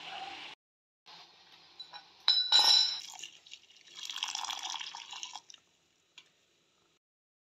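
Liquid poured into a small metal saucepan of brewing tea: a short, louder splash with a clink about two and a half seconds in, then a stream of milk pouring into the pan for about a second and a half.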